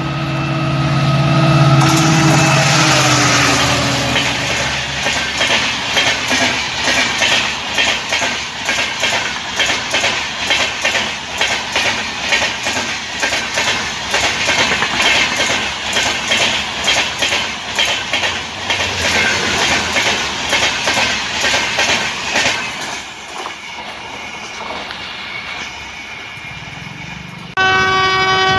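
Passing express train: the locomotive's horn sounds as it comes past, its pitch dropping, then the coaches rush by with a rapid clickety-clack of wheels over the rail joints. Near the end another train's horn starts suddenly and loudly.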